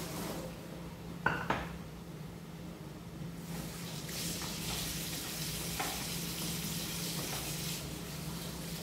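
Metal pots handled at the stove: two sharp clanks about a second in, then a steady hiss of food frying in a pan.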